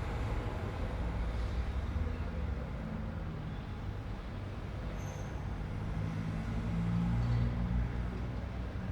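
Street traffic: a steady low rumble of vehicle engines, with one engine growing louder as it passes and loudest about seven seconds in.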